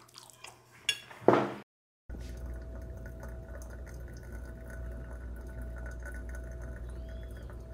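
Water heating toward the boil for coffee: a steady low rumble and hiss with a faint constant hum, starting abruptly about two seconds in. Before it come a few short clicks and clatters.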